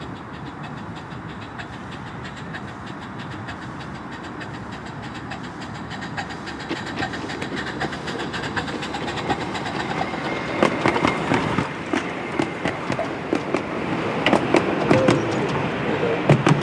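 Miniature steam locomotive, a scale model of a Southern Railway rebuilt Merchant Navy class 4-6-2, running towards and past with its passenger coaches. The running sound grows steadily louder. From about ten seconds in, many sharp clicks of wheels on the rails come as the engine and coaches go by close.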